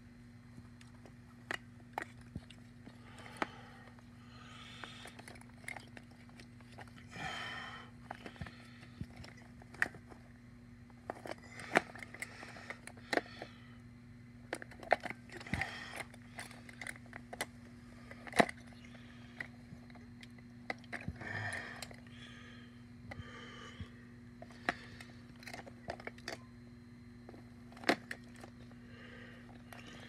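Plastic Bic-style disposable lighters clicking and clattering against one another as a hand shifts them around in a packed plastic bin, with short shuffling rustles between the knocks. A steady low hum runs underneath.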